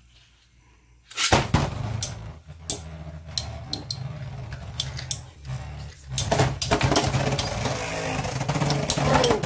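Two Beyblade spinning tops launched into a plastic stadium about a second in, then spinning on the plastic floor with a steady low whir and clattering with many sharp clicks as they knock into each other and the stadium walls, busier and louder from about six seconds in.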